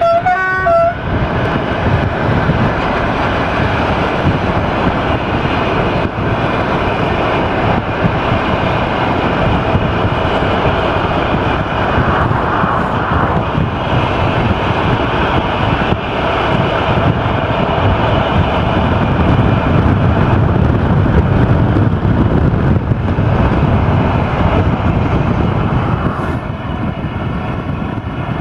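A two-tone horn sounds briefly in the first second. After it comes steady running noise from a vehicle pacing a freight train hauled by a Class 480 electric locomotive: road and wind noise mixed with the train's rumble. It grows a little louder past the middle and eases near the end.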